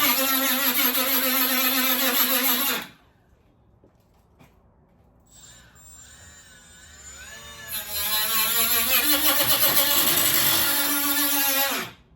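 Power cutting tool cutting a sheet body panel with a steady whine. It stops about three seconds in, winds up again in rising pitch a few seconds later, runs on, and cuts off just before the end.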